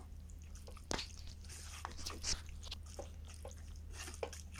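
Wooden spatula mixing raw marinated chicken pieces through thick onion-tomato masala in a clay pot: irregular wet squelching and scraping, with a sharp knock about a second in.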